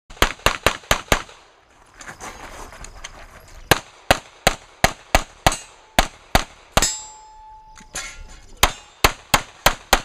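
Pistol shots fired in quick strings during a practical shooting stage: about five fast shots at the start, a pause of about two seconds, then steady strings of shots about three a second. A ringing tone hangs on for about a second after a shot about seven seconds in.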